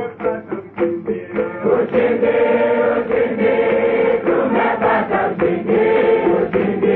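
A choir of voices singing a hymn, short broken-up notes for the first second and a half, then long held notes.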